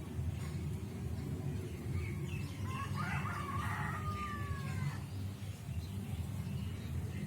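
A bird calls once, about three seconds in: a call of about two seconds that ends in a long falling note, over a steady low rumble.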